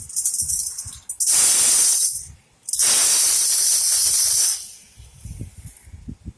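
Two loud bursts of hissing noise, the first about a second long and the second about two seconds long, each starting and stopping sharply.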